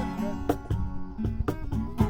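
Music with a strummed acoustic guitar.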